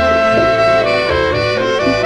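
Instrumental music: a held melody stepping from note to note over a moving bass line.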